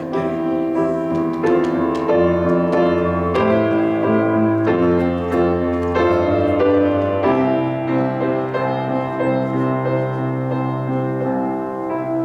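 Piano playing slow, sustained chords, changing every second or two.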